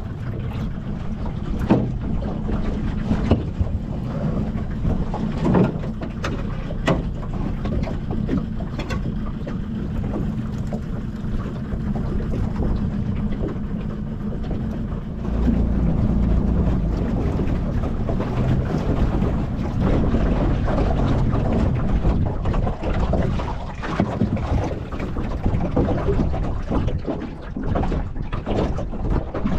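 Wind rumbling on the microphone aboard a small aluminium boat, stronger from about halfway through. Over it come scattered knocks and rattles as a wire-mesh crab pot and its rope are handled against the hull.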